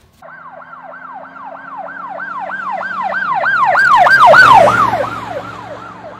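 Emergency vehicle siren in a fast yelp, wailing up and down about three or four times a second over the vehicle's low hum. It grows louder to a peak a little past four seconds in, then drops slightly in pitch and fades as it passes.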